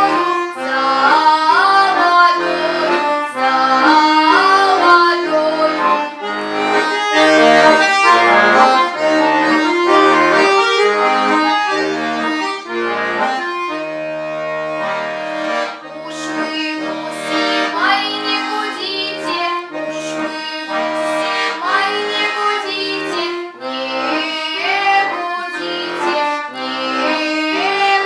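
A girl singing a Russian folk song with accordion accompaniment. The voice is strongest in the first half, while the accordion plays held notes and chords throughout.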